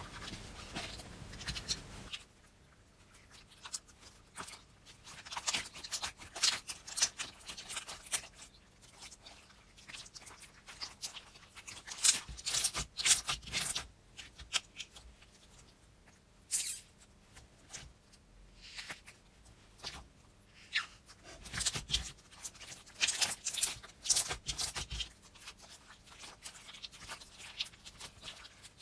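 Slime being squished and poked by hand, giving irregular sticky clicks and crackles in clusters with short pauses between them.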